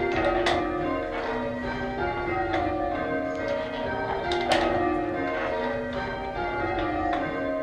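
Church bells change ringing: a ring of tower bells struck one after another in quick succession, their ringing tones overlapping without a break.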